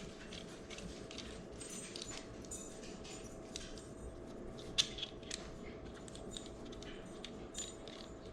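Faint clicks and rustles of small plastic parts being handled as a GoPro mount is fitted into a ball socket, with one sharper click near the middle, over a steady faint hum.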